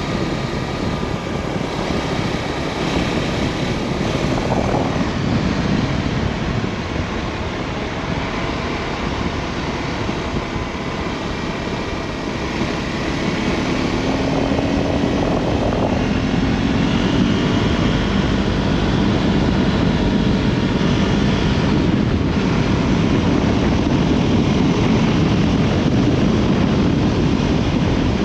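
Wind buffeting the microphone in a steady rumbling rush, growing louder about halfway through.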